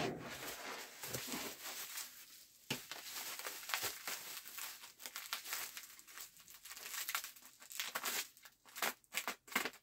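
Packaging around a bundle of golf clubs crinkling and tearing as it is opened, with irregular crackles and a few sharp clicks.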